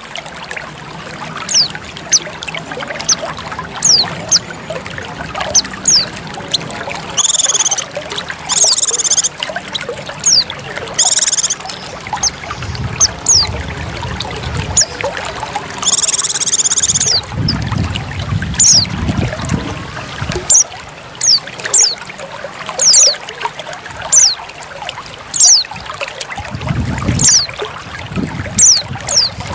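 Female white-eye (pleci) calling over a trickle of running water: short, high, falling chirps about once a second, with a few longer buzzy calls between them. This is a lure recording meant to draw male white-eyes into song.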